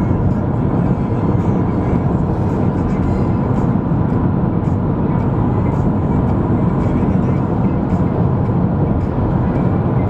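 Steady road and engine noise inside a moving car's cabin at speed, a constant low rumble with no sudden events.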